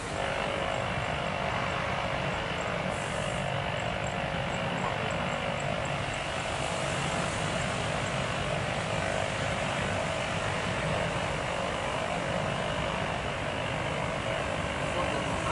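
Airliner engines running, a steady rush of engine noise with a faint constant whine and no change in level.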